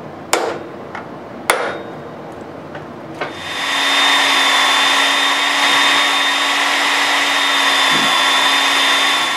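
Two sharp hammer taps on a center punch, then a handheld electric drill starts about three seconds in and runs steadily at an even pitch, drilling a small pilot hole for a 10-24 screw into the lathe's casting.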